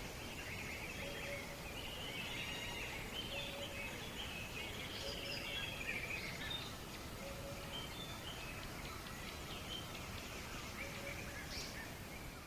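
Several birds chirping and trilling over a steady rush of river water, with a short low note that recurs every couple of seconds.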